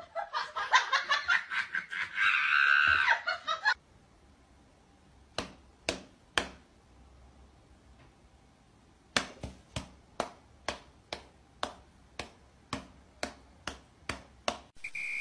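A voice, like snickering laughter, for the first few seconds; then, after a pause with a few single taps, a run of quick light slaps, about two to three a second, as a hand and a Bengal cat's paw pat against each other.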